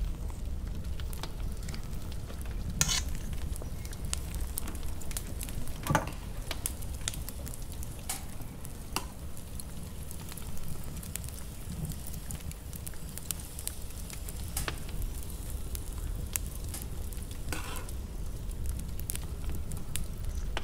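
Melted chocolate mixture being folded into whipped egg whites in a stainless-steel bowl with a spatula and a wire whisk: continuous soft stirring and scraping, with a few sharper scrapes against the bowl.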